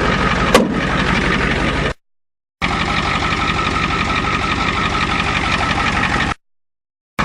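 Ford diesel truck engine running steadily at idle, run without coolant just after a cold start on newly repaired glow plugs. A sharp click about half a second in, and the sound drops out completely twice for under a second.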